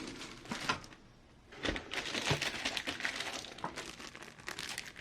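Plastic packaging crinkling and rustling as small kit parts are handled, in irregular bursts with a brief lull about a second in and the densest crinkling in the middle.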